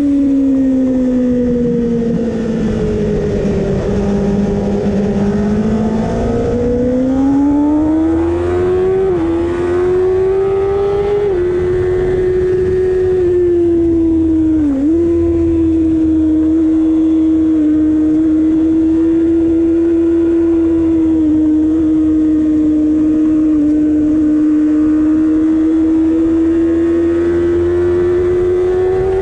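Kawasaki ZX-6R 636's inline-four engine running hard at high revs on the racetrack. The pitch sags over the first few seconds and climbs back. It dips briefly a few times, then holds steady and rises slightly near the end.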